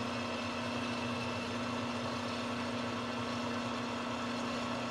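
Manual lathe running at a steady spindle speed of about 250 rpm, its motor and gearing giving a steady hum with one clear tone.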